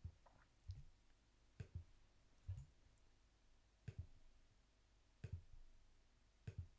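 Faint computer mouse clicks, about seven spread roughly a second apart, several as quick double ticks, as options are selected on an on-screen form.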